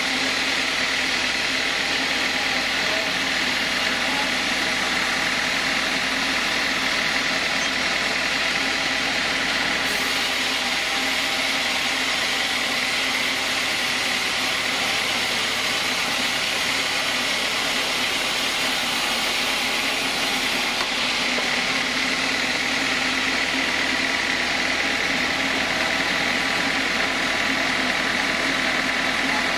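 Band sawmill running, its blade cutting lengthwise through a squared timber beam: a steady machine hum with a constant high hiss from the cut.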